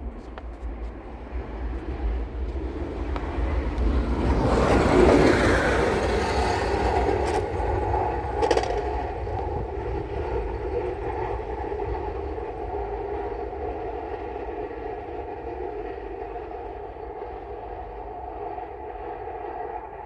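A machine or engine running steadily, with a loud surge about four to seven seconds in, then a steady humming drone that slowly fades.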